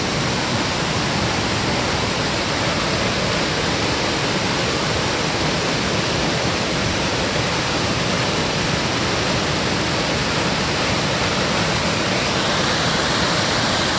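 Small mountain-stream waterfall pouring over rocks into a pool: a steady, unbroken rush of water.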